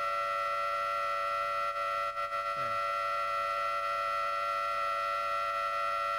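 Steady high-pitched tone with overtones from an acoustic levitation chamber's sound driver, holding a ball suspended in a standing sound wave. The pitch holds level throughout.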